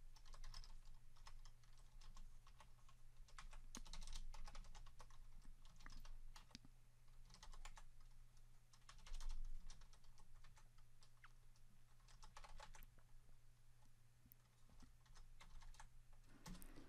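Faint typing on a computer keyboard: irregular keystroke clicks in scattered runs, over a steady low hum.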